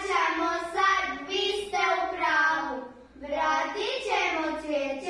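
Children singing, with long held notes that glide up and down.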